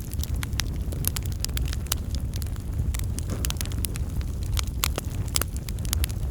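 Wood fire in a fireplace crackling, with frequent sharp irregular pops over a steady low rumble of the flames.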